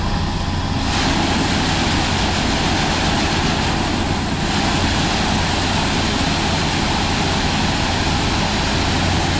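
Heavy diesel farm tractor engine running steadily under a loud, even rushing noise.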